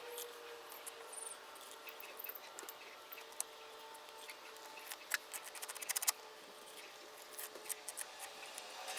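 Faint scratching and scattered small clicks, with a burst of quick ticks about five to six seconds in, from a hand tool roughing up the wet texture coat of a premixed stucco patch.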